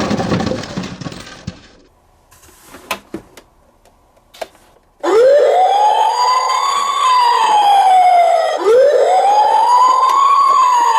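Toy emergency vehicle's electronic siren wailing, starting about halfway through: two slow sweeps, each rising and then falling in pitch. Before it, a noise fades out in the first two seconds, followed by a few light clicks.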